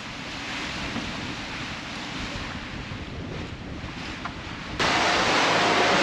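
Wind and rough sea rushing around a sailing catamaran under way in strong wind, with wind buffeting the microphone. About five seconds in, the sound jumps suddenly to a louder, hissier rush.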